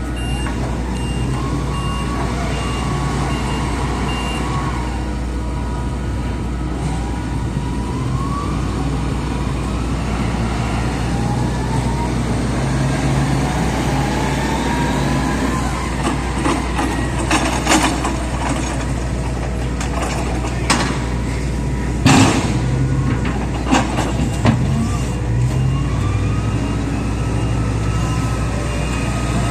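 Cargo-handling vehicles and machinery working at a cargo ship's side: engines running and revving over a steady low hum. A repeating warning beep sounds for the first few seconds, and sharp metal clanks come several times in the second half.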